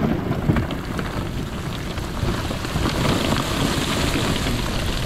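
Steady spattering of water, a dense patter of many small drips and splashes, getting a little stronger about halfway through.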